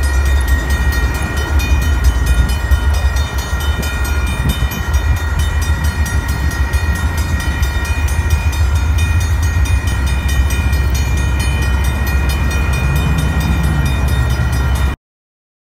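Railroad grade-crossing warning bell ringing steadily with the gates down, over a constant low rumble. The sound cuts off abruptly near the end.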